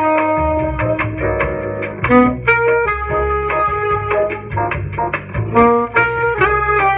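Soprano saxophone playing a jazz etude line, a run of short notes changing quickly in pitch, in unison with a recorded saxophone over a bass accompaniment.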